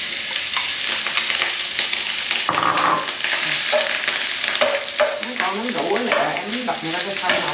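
Cooked rice sizzling in hot oil in a frying pan on a gas burner, with a spoon scraping and turning it as it is stir-fried.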